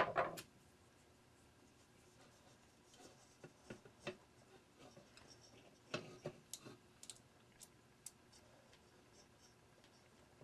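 Small parts of a Christmas-light socket being handled and pressed back together: a sharp clatter right at the start, then scattered faint clicks and taps.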